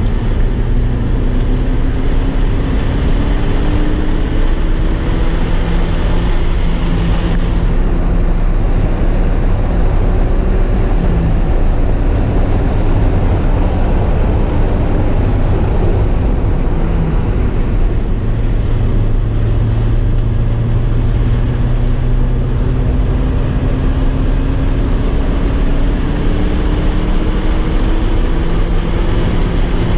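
Porsche 944's inline four-cylinder engine pulling hard at speed under heavy wind and road noise. Its pitch climbs slowly on long stretches of acceleration and is broken by a few gear changes.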